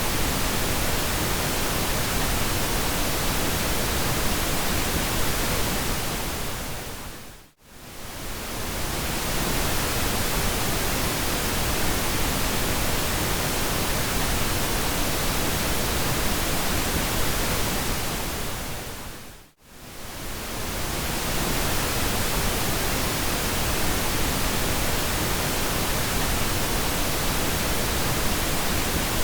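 Steady pink noise, an even hiss spread across all pitches. It fades down to near silence and straight back up twice, about seven and a half seconds in and again about twelve seconds later.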